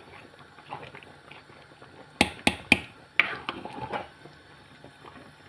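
Three sharp clicks in quick succession, about a quarter second apart, near the middle, followed by a brief, noisier clatter.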